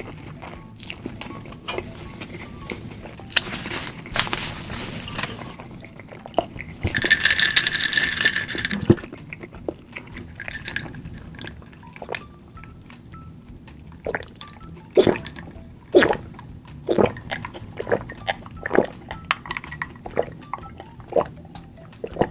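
Close-miked eating sounds: chewing and wet mouth noises. There is a louder noisy stretch about a third of the way in, and a run of sharp clicks about once a second in the second half.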